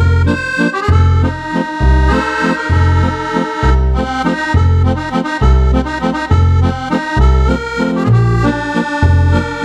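Roland FR-8 digital accordion playing a tune: a right-hand keyboard melody over a steady left-hand bass, with a low bass note about once a second and button chords in between.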